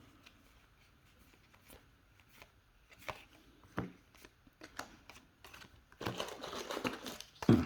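Trading cards handled and flipped through by hand: a few soft scattered taps and flicks, then a denser rustle of cards sliding against each other from about six seconds in.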